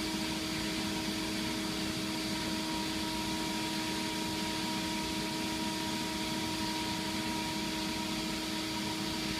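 Steady hum of running shop machinery: one constant pitched drone with its overtones under an even hiss, with no change in pitch or level.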